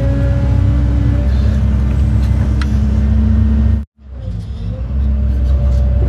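Cat 309 excavator's diesel engine running steadily while the excavator digs and swings its bucket, heard from inside the cab. The sound drops out abruptly for an instant about four seconds in, then builds back up.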